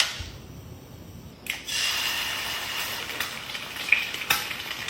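Spam frying in a hot pan: a knock, then a steady sizzle that starts suddenly about a second and a half in as the food meets the hot oil.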